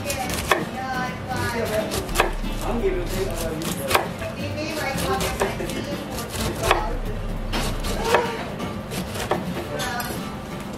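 Chef's knife slicing the rind off a whole pineapple in downward strokes. Each stroke ends in a sharp knock of the blade on the cutting board, about every second and a half.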